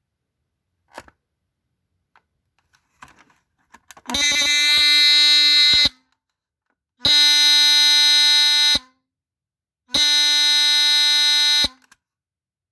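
Chloride Pyrotector 30-77ARF2 smoke detector's Star buzzer horn sounding on a push-button test: a few faint clicks, then, after a delay, three loud buzzing blasts of about two seconds each with short gaps between, the detector's low pulsing alarm.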